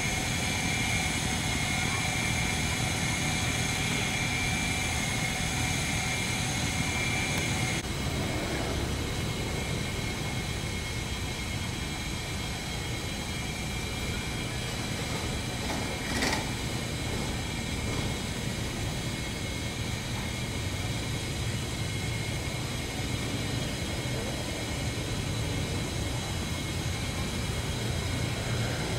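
River cargo barge's diesel engine running with a steady low drone. A high thin whine over it stops about eight seconds in, and a single brief knock comes about sixteen seconds in.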